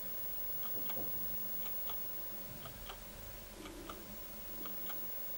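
Clock ticking faintly, a tick-tock pair about once a second, over a low steady hum.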